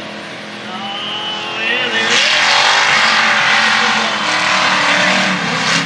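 Mega truck engine revving up as it climbs a dirt hill, then running flat out from about two seconds in, loud and noisy, with the tires spinning in the loose dirt.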